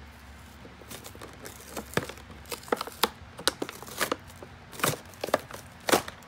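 Clear plastic blister pack crackling and crinkling in a run of sharp, irregular snaps as it is pried and torn away from its cardboard backing card.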